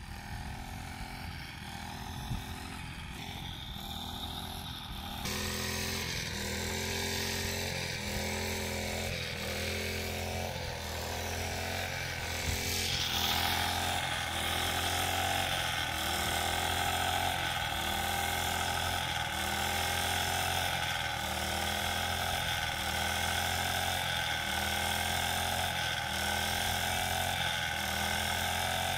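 Backpack gasoline brush cutter running while cutting grass. Its engine drones steadily with a rhythmic rise and fall about once a second, and it gets louder and higher about halfway through.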